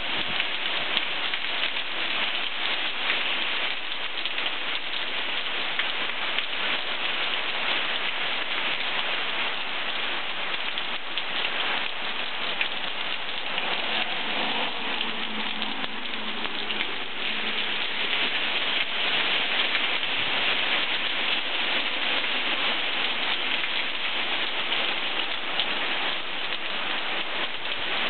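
Heavy tropical-storm rain pouring steadily onto a lawn, trees and street. About halfway through, a car passes on the wet road.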